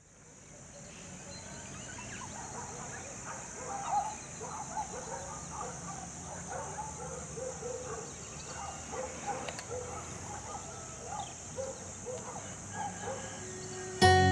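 Night ambience fading in: a steady high-pitched insect drone with many short animal calls scattered through it. An acoustic guitar comes in right at the end.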